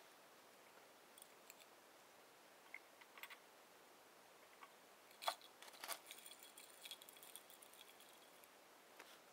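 Near silence broken by a few faint glass clinks from a beaker in an ice bath being stirred. The sharpest clink comes a little past five seconds in, and a faint high ring follows another about a second later.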